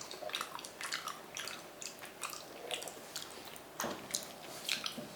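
A person chewing a mouthful of raw chicken: a run of short, irregular mouth clicks and chewing noises.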